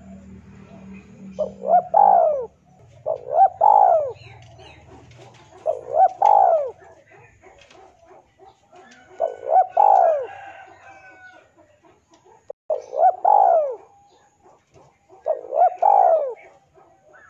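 Male spotted dove cooing, a repeated call of a few arched, rising-and-falling notes, given six times about every two to three seconds. This is the male's call toward a rival.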